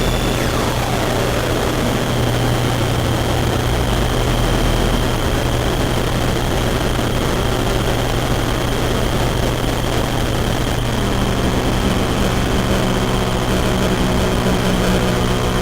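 DIY electronic noise synthesizer playing a loud, dense drone of hiss with a steady low hum and a thin high whine. A tone sweeps downward over the first two seconds, and about eleven seconds in a buzzing chord of steady pitches comes in.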